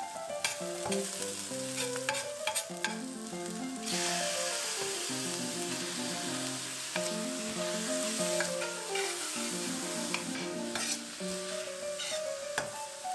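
Diced onion and peppers sizzling in oil in a wide stainless steel sauté pan, with a metal spoon scraping and clicking against the pan as it stirs; the sizzle picks up about four seconds in as raw chicken liver goes into the pan. Light background music plays underneath.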